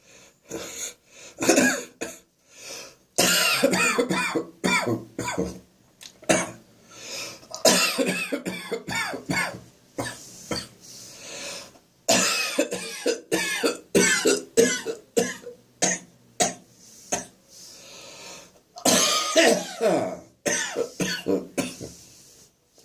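A person in a coughing fit: repeated bouts of coughs in clusters, with short pauses between them. The cough is brought on by acid reflux irritating the throat.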